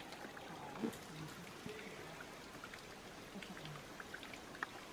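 Giant panda chewing and snapping bamboo: irregular small crunching clicks over a low hiss.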